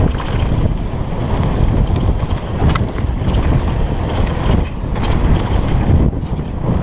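Wind buffeting the handlebar-mounted GoPro on a Specialized Demo downhill mountain bike descending a dirt trail at speed, with a steady low rumble from the tyres and bike and a few light clicks and rattles.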